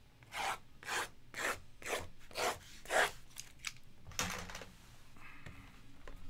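Box cutter slitting the plastic shrink wrap on a stack of trading-card boxes: six quick cutting strokes about half a second apart, then one longer stroke about four seconds in.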